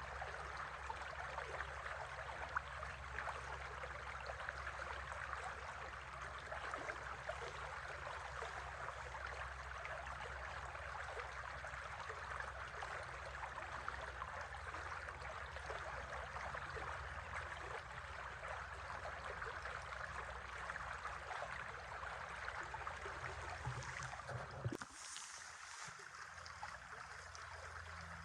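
River water running steadily, a continuous rushing. About 25 seconds in it changes abruptly to a quieter, thinner water sound.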